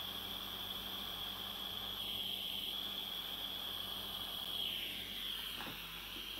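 Butane gas soldering iron running: a steady hiss with a high whistling tone in it, easing a little near the end.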